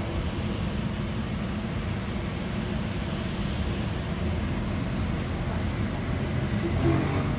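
Container freight train rolling across a viaduct at a distance: a steady rumble with a low hum from the passing wagons. A short pitched sound rises over it near the end.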